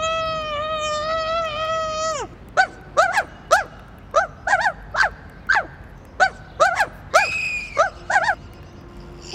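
A high-pitched cartoonish voice: one long held wail that drops in pitch and stops about two seconds in, then a run of about a dozen short squeaks, roughly two a second, with one longer, higher squeak near the end.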